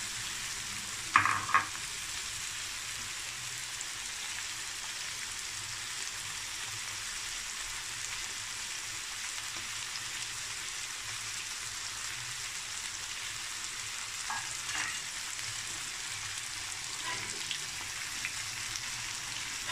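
Oil sizzling steadily in a wok, with onions, tomato and freshly added diced potatoes frying in it. Two sharp knocks come about a second in, and a few faint clicks later.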